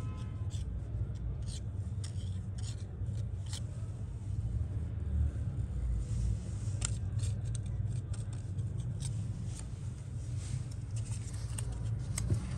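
Irregular light clicks and scrapes from a metal BGA reballing stencil and its plastic jig being handled, as the spare solder balls are worked off with a paper card. A steady low hum runs underneath.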